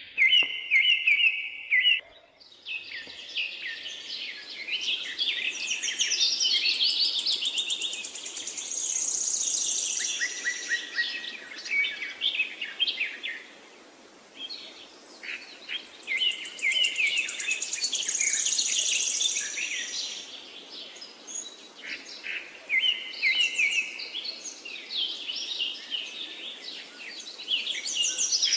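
Birds chirping and trilling steadily, with fast high trills and short repeated chirps. The sound dips briefly about halfway through.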